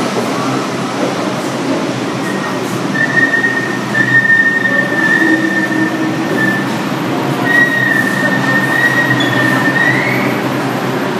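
R142 subway train pulling into the station and braking to a stop: a steady rumble of wheels on rail under a high, steady squeal that starts about two seconds in, rises briefly near the end and then stops.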